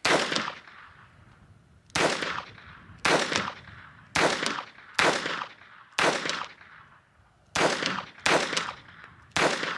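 Phoenix Arms HP22A .22 LR semi-automatic pistol firing a string of about ten single shots, roughly one a second, each crack followed by a short echo. Every round goes off with no misfire.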